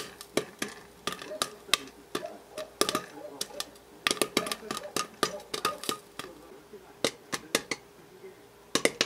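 Dishes and kitchen utensils clinking and knocking: a string of sharp, irregular taps, several a second at times, each with a short ring.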